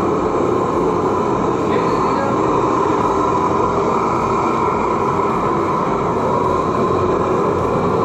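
Gas burner firing into a homemade furnace built from a steel gas cylinder, a loud steady rushing roar. The furnace is at full heat, melting aluminium.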